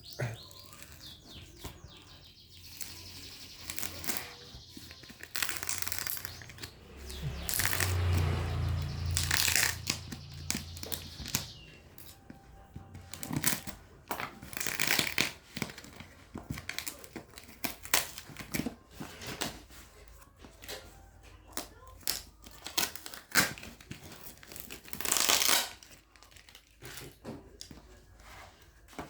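Packaging for a Samsung Galaxy Fit3 fitness band being handled and opened by hand, with irregular rustling, crinkling and tearing and scattered short knocks and taps.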